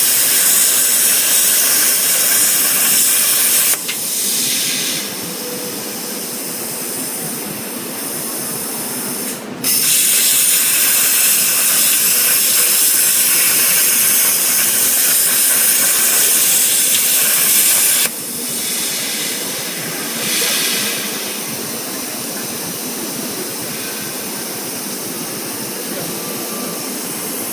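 Portable CNC cutting machine's torch hissing loudly as it cuts metal. The loud hiss stops abruptly about four seconds in, leaving a quieter steady hiss. It starts again about ten seconds in and runs until about eighteen seconds in, then drops back to the quieter hiss.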